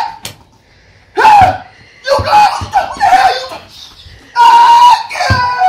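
Loud shouted cries and laughter in short bursts, with a few sharp smacks between them.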